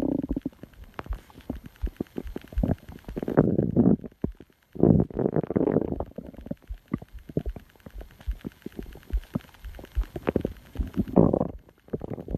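Stomach growling: irregular gurgling rumbles, three longer swells among many short pops and clicks.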